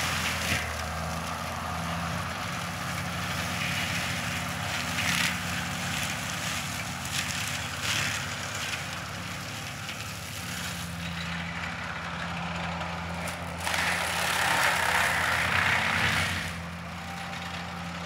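Rayco tracked forestry mulcher's diesel engine running steadily under load while its front mulching head grinds through brush and leaf litter. A rushing, shredding noise swells over the engine at times, loudest for a couple of seconds about fourteen seconds in.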